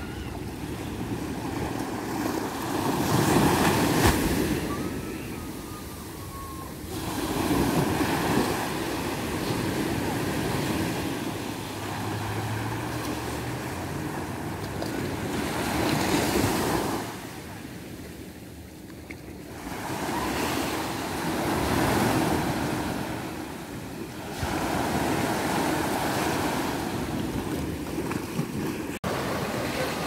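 Small waves breaking on a sandy beach and washing up the shore, the surf swelling and falling away every few seconds.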